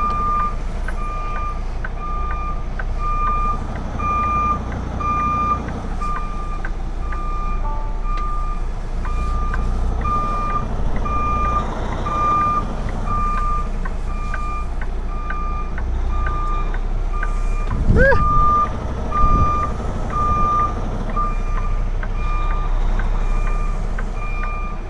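Truck's reversing alarm beeping in a steady, evenly spaced run over the low running of the diesel engine as the tractor-trailer backs up. A short rising sound breaks in briefly about two-thirds of the way through.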